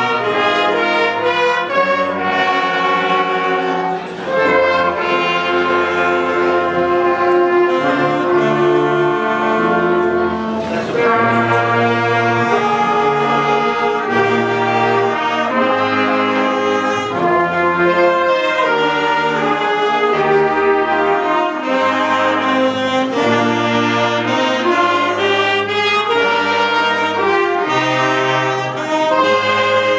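Wind band playing live: clarinets, saxophones, flute, trumpets and sousaphone together in sustained chords over a moving bass line.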